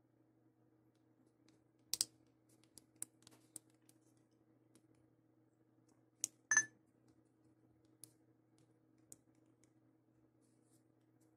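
Key clicks from the HTC Touch Pro 2's slide-out QWERTY keyboard as a word is typed: scattered single clicks, a cluster between about two and three and a half seconds in, and the loudest press a little past six seconds. A faint steady low hum runs underneath.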